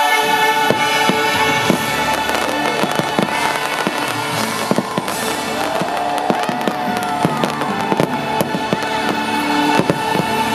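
Aerial fireworks bursting: many sharp, irregular bangs and crackles over the show's music, which holds steady chords.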